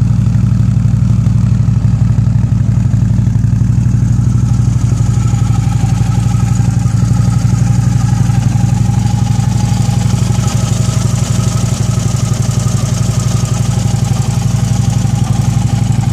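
2010 Harley-Davidson Ultra Limited's V-twin idling steadily, with its exhaust freshly clamped tight and no squeak from the exhaust system.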